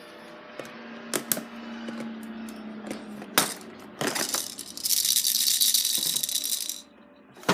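Toy baby rattle shaken hard for about three seconds in the second half, a dense high-pitched rattling. Before it come a few light plastic clicks and knocks of handling.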